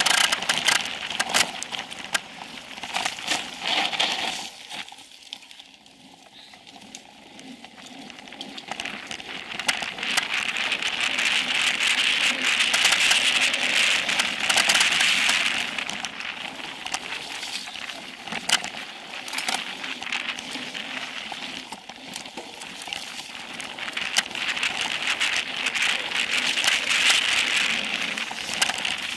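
Specialized Epic Pro mountain bike riding fast downhill on a dirt singletrack: tyres crackling and crunching over dirt and small stones, with many small rattles and knocks from the bike. The noise swells and fades with the terrain and dips for a couple of seconds about five seconds in.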